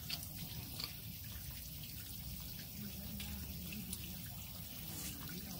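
Steady trickle of running water, with a few faint clicks.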